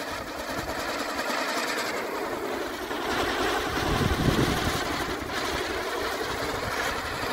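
Firework sun wheel spinning and burning, giving off a steady, dense, rapid rattling hiss.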